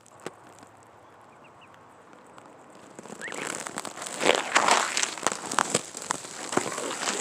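Crackling, crunching rustle of dry ground litter being disturbed, starting about three seconds in and getting loud, with a few faint high chirps before it.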